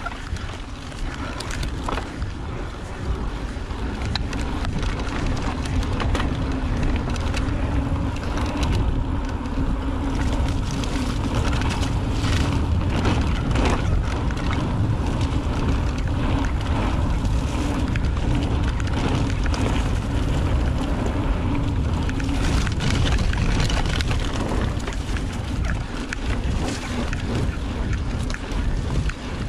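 Mountain bike being ridden fast down a dirt trail: steady wind buffeting the ride-along camera's microphone, with tyre rumble and frequent short rattles and knocks from the bike over bumps.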